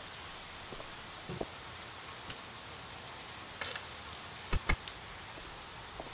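Steady rain with scattered drips, and a brief rattle followed by two sharp knocks in quick succession about three-quarters through.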